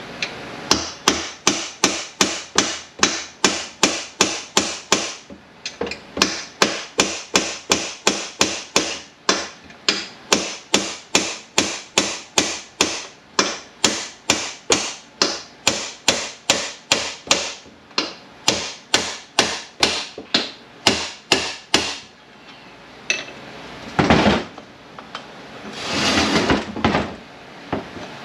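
Hammer blows on a Ford MT82 manual transmission case, about three a second in a steady run with a brief pause about five seconds in, driving the case's dowel pins back. The hammering stops a few seconds before the end, and two rougher noises follow, a short one and then a longer one.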